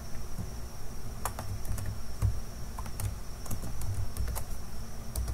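Computer keyboard typing: irregular key clicks as a command is typed into a terminal.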